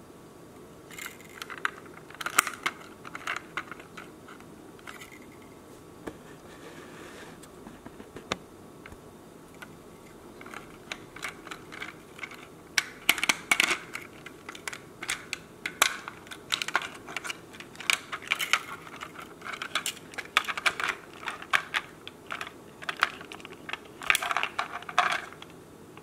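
Hard plastic clicks and snaps as the housing of a Kidde P12040 photoelectric smoke alarm is worked and pulled apart by hand, its retaining clips releasing. A few scattered clicks come first, then dense irregular clicking from about halfway through.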